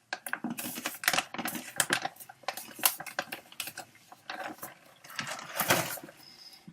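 Irregular crisp crackling and clicking: a crunchy pretzel snack being chewed close to the microphone while a resealable snack bag crinkles shut, with a denser burst of crinkling near the end.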